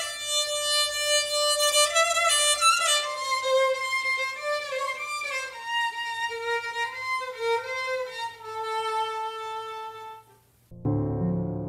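Solo violin playing a slow melody, one note at a time. Near the end it stops, and after a short gap piano chords come in.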